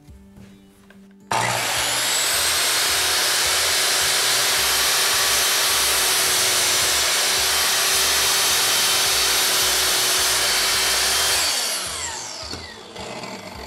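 Skil MS6305-00 10-inch sliding compound miter saw with a 15-amp motor. About a second in, the motor starts suddenly and runs steadily for about ten seconds while the blade cuts a 45-degree miter through a wooden board. Near the end the trigger is released and the blade winds down with a falling whine.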